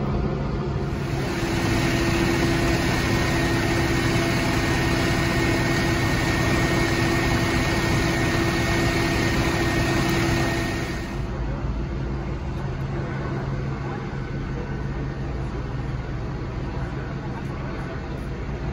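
Vehicle engine idling: a steady low hum with a faint high tone over it. About eleven seconds in it drops away to a quieter, steady background of outdoor noise.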